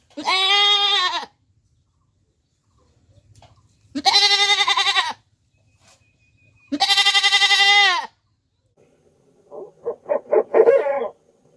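A goat bleating: three long bleats of about a second each, then a quick run of short stuttering calls near the end.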